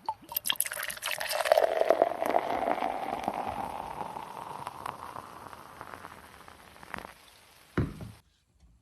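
Liquid being poured into a container, the pitch of the pour rising steadily as it fills, then fading. A low thump near the end.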